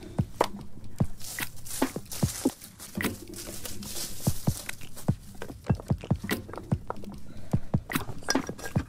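Stones knocking and clacking against each other as they are set in place to build a rock fire ring, mixed with footsteps on grass. Repeated short, sharp knocks, about two a second.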